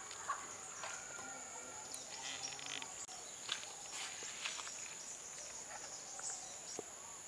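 Insects chirring steadily at a high pitch, with faint scrapes and light taps of a coconut-shell ladle in a clay pot of curry.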